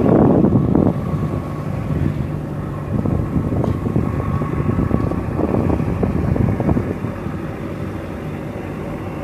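A small boat's engine running steadily, with wind buffeting the microphone; louder for the first second.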